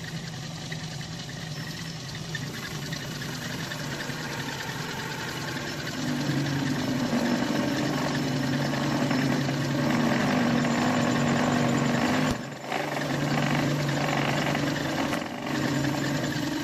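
Metal lathe running with a cutting tool taking a cut on the workpiece: a steady machine hum, with the cutting noise getting louder about six seconds in. The level drops briefly twice near the end.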